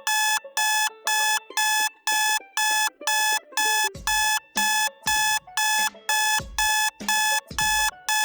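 Electronic alarm clock beeping: a steady run of short, high beeps, about two a second.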